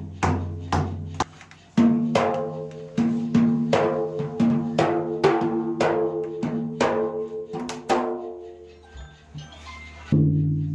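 Dhola, a two-headed barrel drum, being struck in a sound check after repair: a quick run of strokes that ring with clear pitched tones. Deep bass strokes sound at the start and again about ten seconds in, with short lulls between the runs.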